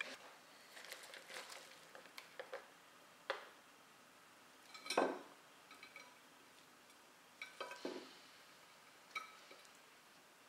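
Scattered clinks and knocks of a bowl and a ceramic plate being handled as salad is moved onto the plate by hand. The loudest is a single ringing clink about halfway through.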